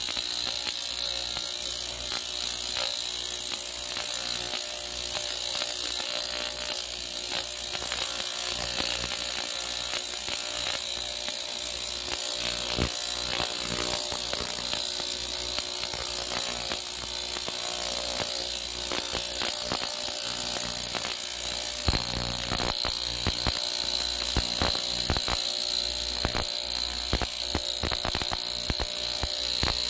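Ultrasonic cleaner running: a steady high-pitched whine and hiss with irregular crackling clicks. This is the sound of cavitation in the bath, which is pitting holes in a sheet of aluminium foil.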